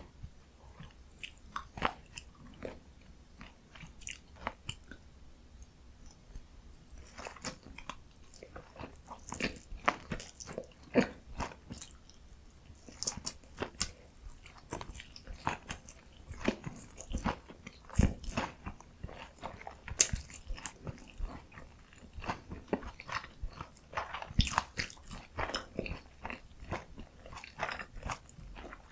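Close-miked eating of Korean dumplings and pickled radish: irregular bites, crunches and chewing clicks, with a few louder bites about 18 and 20 seconds in.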